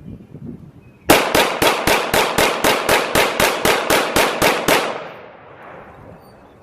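CZ P10-C 9mm pistol rapid-fired: about fifteen shots at roughly four a second, starting about a second in, with the echo dying away after the last shot.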